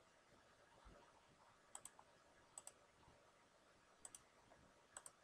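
Faint computer mouse clicks, four in all, each a quick double tick, as shapes and names are selected in the matching exercise. Otherwise near silence.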